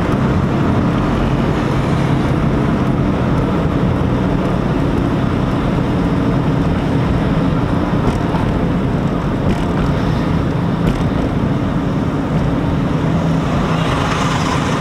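Steady engine and tyre road noise inside the cabin of a moving car, a constant low hum, with a brief swell of hiss near the end.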